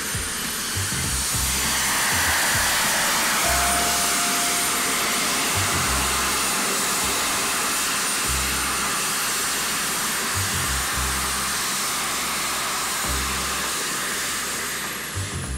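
Electric jet suit's ducted fans on the arms and back, a steady high-pitched rushing whir while the pilot hovers. It swells a couple of seconds in and dies away near the end as the suit is set down and shut off.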